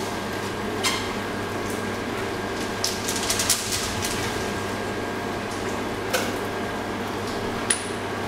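A few sharp clicks and knocks, one near 1 s, a quick cluster around 3 s and two more near the end, over a steady noise that echoes in a small tiled room, as a wet dog and its life vest are handled.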